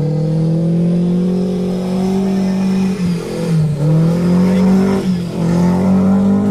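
Maruti Gypsy's engine revving hard while it spins donuts, held at high revs with the pitch climbing; the revs drop briefly twice, about three and a half and five seconds in, and rise again.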